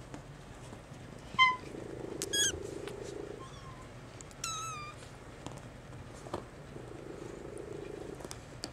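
Maine Coon kitten giving about four high, thin mews, the first the loudest and the last drawn out and falling slightly. Low purring comes and goes underneath.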